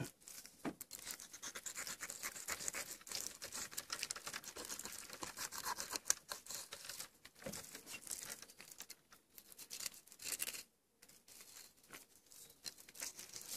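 Fillet knife slicing along a walleye's backbone, the blade scratching and ticking over the rib bones in a quiet, rapid crackle, with a short pause about eleven seconds in.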